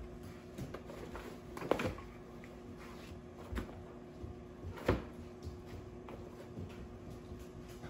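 Husky puppy pawing and tugging at a fabric pop-up tent on a hardwood floor: scattered soft knocks and rustles, the clearest about two seconds and five seconds in. A faint steady hum runs underneath.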